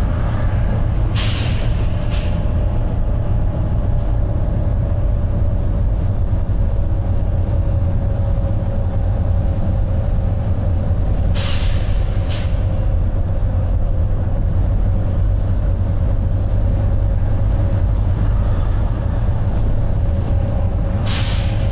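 Volvo B9TL double-decker bus's six-cylinder diesel running steadily at cruising speed, heard from inside the bus as a deep rumble with a steady whine. Three times, about ten seconds apart, the bus's air system gives a pair of short hisses.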